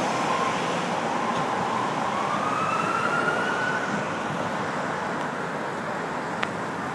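Ambulance siren wailing: a held tone that climbs slowly in pitch around the middle and then fades, over steady city traffic noise. There is a single short click near the end.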